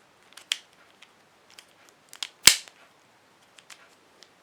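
Scattered plastic clicks of a 3x3 Rubik's cube being taken apart and put back together by hand, with one loud sharp snap about two and a half seconds in.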